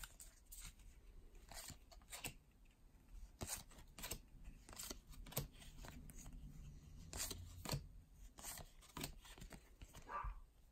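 Stack of baseball trading cards being handled and flipped through: faint, irregular clicks and scrapes of card stock sliding against card.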